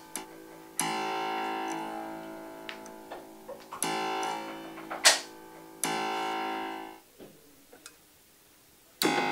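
Harpsichord chords played one at a time: four bright plucked chords that each ring and fade, the third stopping short about seven seconds in. A sharp click just after the fifth second is the loudest sound, and softer key and action clicks fall between the chords.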